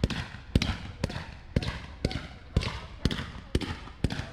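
Fireworks firing in a steady rhythm, about two sharp bangs a second, each with an echoing tail, typical of a multi-shot cake going off.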